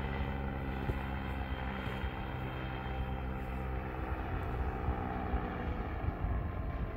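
Paramotor's two-stroke engine running steadily in flight overhead, a buzzing drone whose pitch drops slightly and grows a little louder in the second half.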